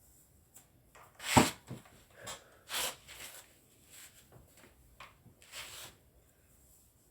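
A woman's breathing while smoking cannabis: one loud, sharp cough-like burst of breath about a second and a half in, then several shorter breathy puffs.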